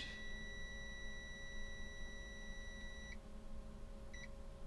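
Digital multimeter beeping: one steady high beep lasting about three seconds that cuts off abruptly, then a single short beep about a second later. The long tone is the meter's continuity beeper sounding while the probe tips touch, signalling a near-zero-resistance connection.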